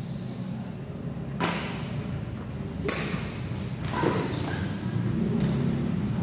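Badminton rackets striking a shuttlecock three times in a rally, sharp smacks about a second to a second and a half apart, echoing in a large hall over a steady low hum.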